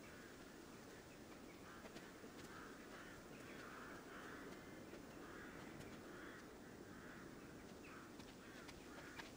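Faint crows cawing again and again over a low outdoor hush, with a few soft footsteps near the end.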